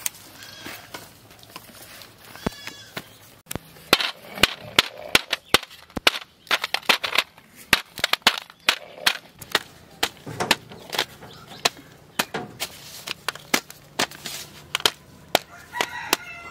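Lumps of jaggery being pounded and crushed with a stone pestle on a steel plate: a series of sharp, irregular knocks, about two to three a second, starting a few seconds in.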